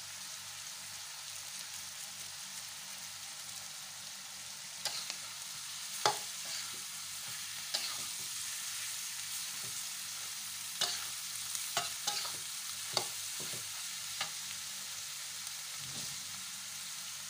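Stir-fry of bitter melon, egg and anchovies sizzling steadily in an aluminium wok. A metal spatula stirs it, scraping and knocking against the pan about ten times from about five seconds in.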